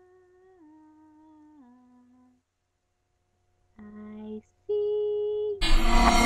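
Faint eerie humming of a slow tune that steps downward and stops after about two seconds; after a pause come two held tones, the second louder, then a sudden loud, ringing horror sound-effect hit near the end.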